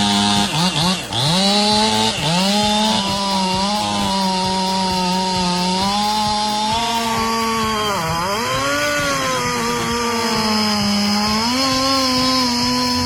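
Chainsaw engine running at high revs while cutting, its pitch dropping and recovering as the chain loads up in the wood: two quick dips in the first two seconds and a deeper one about eight seconds in.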